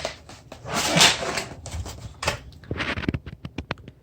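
Packaging being handled: a loud rustle about a second in, then a run of light, irregular clicks and knocks.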